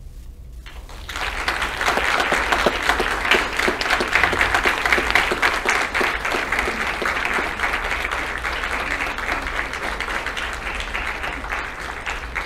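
Audience applauding. The clapping starts about a second in, is loudest early on, and eases slightly toward the end.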